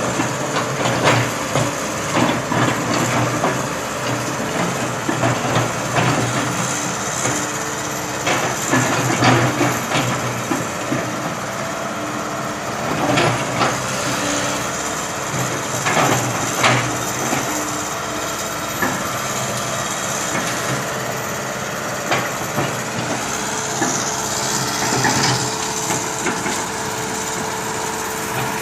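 Backhoe engine running steadily, with irregular knocks and clanks through it every second or few.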